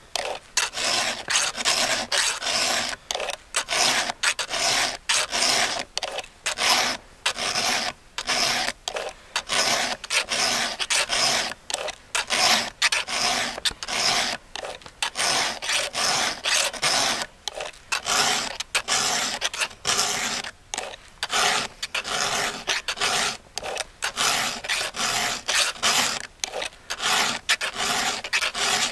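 Round chainsaw file being pushed across the cutters of a Husqvarna 562 XP's saw chain, sharpening it by hand. The file strokes come one after another in a steady rhythm with brief gaps between them.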